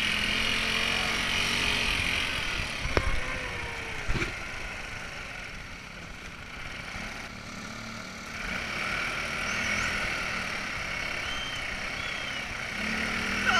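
Off-road buggy engine running as the buggy drives over a dirt track, with two sharp knocks about three and four seconds in. The sound drops off a little after the knocks and picks up again near the middle.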